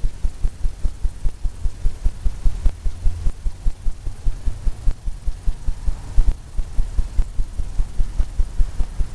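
Palette knife tapping paint onto a stretched canvas: rapid dull thuds, about five a second, kept up steadily.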